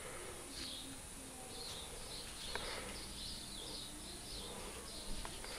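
Faint, high bird chirps repeating about three times a second over low background noise, with two light clicks.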